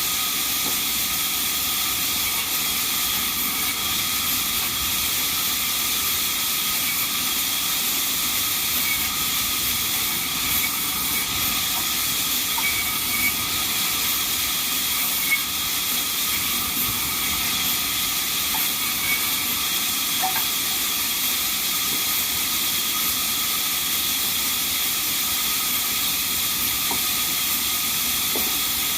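Sawmill band saw running steadily: a loud, even hiss with a high steady whine.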